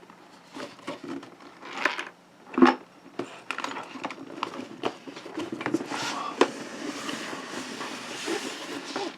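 A heavy cardboard box being opened and its contents handled: a string of knocks and scrapes, the loudest a thump a little over two and a half seconds in, then rustling of packing material.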